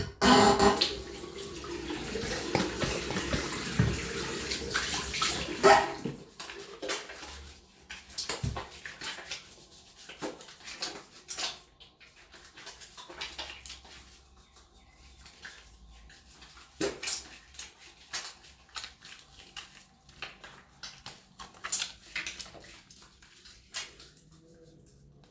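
Tap water running into a sink for about six seconds, then shut off. This is followed by hands being rubbed and lathered: scattered short wet squelches and soft splashes, quieter than the running water.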